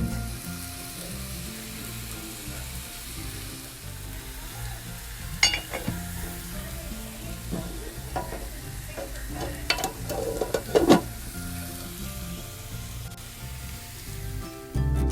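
Food sizzling in a hot frying pan, with a few sharp clicks and scrapes of a utensil stirring it in the middle stretch. Soft background music plays underneath.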